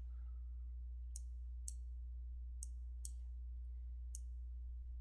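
Computer mouse clicking about five times at irregular intervals, over a steady low electrical hum.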